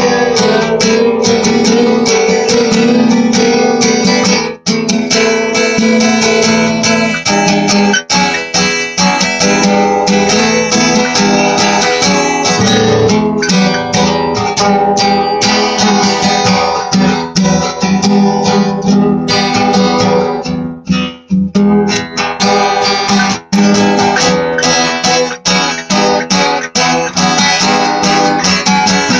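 Acoustic guitar played solo in a continuous run of chords, with a few short breaks, the longest about two-thirds of the way through.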